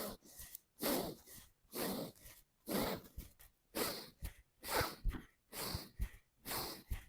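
A man breathing forcefully in a steady rhythm, about one breath a second, as part of a deep-breathing exercise against snoring. A few soft low thumps come in the second half.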